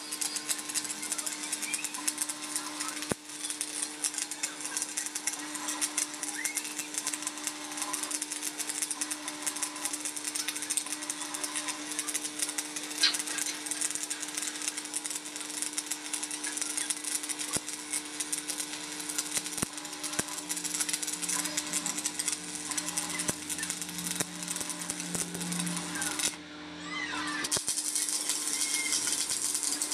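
Stick (arc) welding on steel: the electrode arc crackles and sizzles steadily over a low hum. Near the end the arc breaks off for about a second, then is struck again and the crackle resumes.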